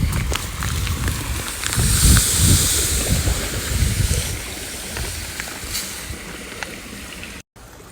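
Pool salt pouring from a cut bag into the pool water, a hissing pour lasting about two and a half seconds, with knocks and a low rumble of handling around it.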